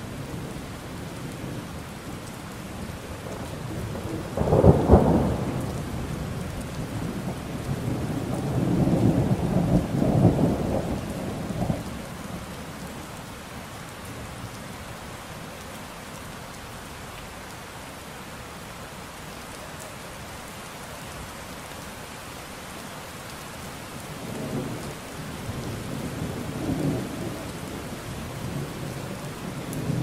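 Steady rain with thunder. A loud thunderclap comes about five seconds in, and a longer rumble follows a few seconds later. After a stretch of rain alone, softer rumbles come near the end.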